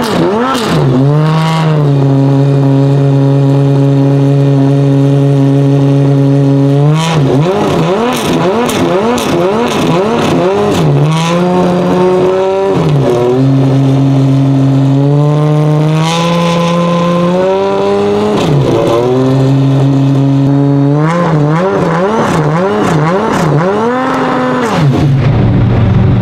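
Ferrari 550 GTS Maranello GT1's 6-litre 65° V12 revved while stationary: bursts of quick throttle blips alternate with revs held steady at a constant pitch for several seconds at a time, a couple of times stepped a little higher.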